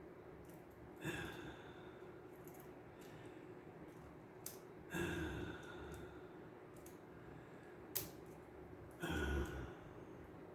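A man breathing out heavily through the nose three times, about four seconds apart, between two sharp little clicks of small parts being handled in a cassette deck's tape mechanism.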